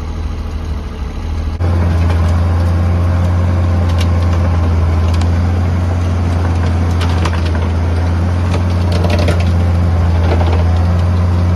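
Farm tractor's diesel engine running steadily close by, louder from about a second and a half in, with scattered clicks and knocks as silage spoilage is loaded into a manure spreader.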